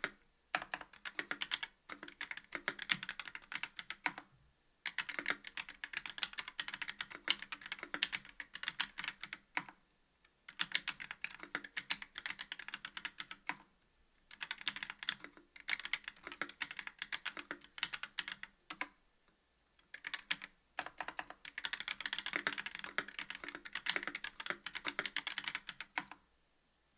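Mechanical keyboard typing: a KBD67 V2 MKII with a brass plate, YOK Trash Panda linear switches and GMK keycaps, keys clacking in quick runs with short pauses between them, stopping a moment before the end.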